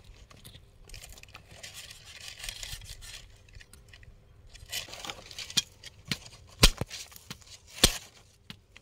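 Palmyra palm fruits (nungu) being cut open and scooped out by hand: a scraping, tearing sound, then about four sharp clicks of the blade against the fibrous husk over the last few seconds.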